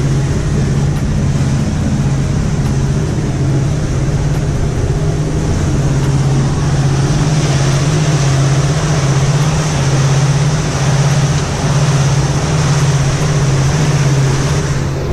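Motor cruiser's engine running steadily at about 2,000 RPM under way, a strong low drone with a steady rushing noise over it.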